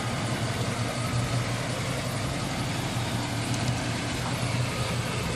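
1972 Chevrolet donk's engine idling steadily with a low, even hum.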